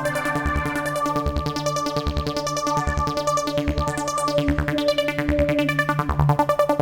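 E-MU Audity 2000 synthesizer module playing a demo patch: held synth chord tones over a fast repeating pattern and a steady low beat. A falling sweep comes about two-thirds of the way in.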